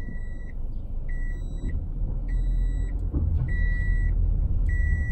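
Car's seatbelt warning chime beeping, a steady high tone of about half a second repeating roughly every 1.2 seconds, over the low rumble of the car rolling slowly, heard inside the cabin.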